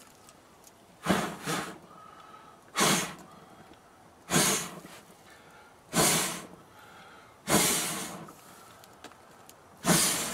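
A man blowing hard on a flaming pellet smoker tube to put out the flames: about six strong puffs of breath, roughly one every second and a half.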